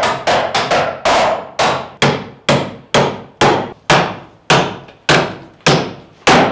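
Steady hand-hammering: about fourteen sharp hammer blows at roughly two a second, each ringing briefly.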